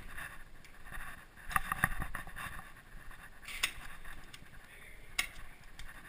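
Sharp clacks and knocks over a rustling, shuffling background, as in a close-quarters airsoft game: a quick cluster of three about a second and a half in, then single ones at about three and a half and five seconds.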